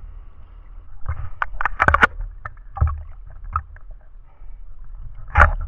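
Sea water sloshing and splashing around a camera held at the surface. A steady low rumble runs under several sharp splashes, the loudest about two seconds in and another near the end.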